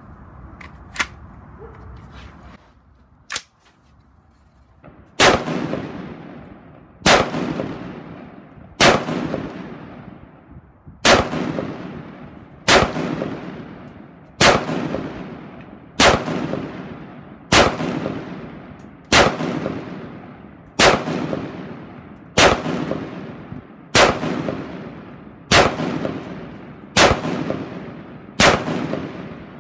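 Custom-built AR-15-style rifle fired semi-automatically from a rest: about fifteen single shots, a little under two seconds apart, each with a long ringing tail. Before the first shot come a couple of sharp clicks as the rifle is handled and readied.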